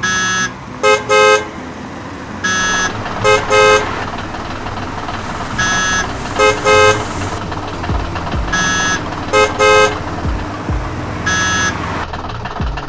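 Vehicle horn sound effect honking in a repeating pattern: one longer honk then two short beeps, about every three seconds, over a steady engine rumble.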